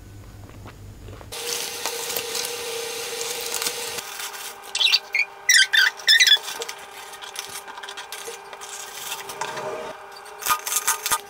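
Paper and cardboard food packaging rustling and scraping against a table as it is handled and set out, in several short loud bursts around the middle and a few more near the end, over a steady hiss.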